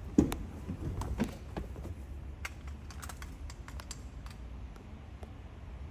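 A string of irregular light clicks and knocks, the loudest a sharp knock just after the start, over a steady low hum.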